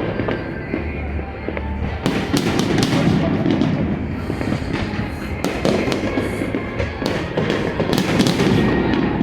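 Aerial fireworks bursting, a dense run of bangs and crackling reports, one after another.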